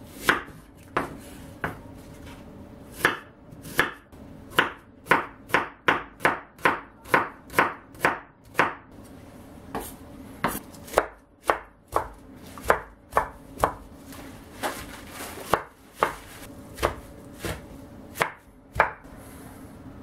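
Chef's knife chopping onion and spinach on a wooden cutting board: sharp knocks of the blade on the board, in a quick run of about two a second, then sparser strokes with pauses.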